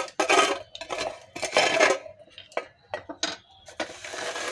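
Steel kitchenware being handled: three scraping strokes of a spoon against a steel plate, then several short, sharp clinks.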